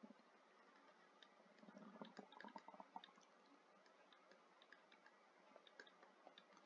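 Near silence: room tone with faint, scattered clicks and a brief patch of soft rustling about two seconds in.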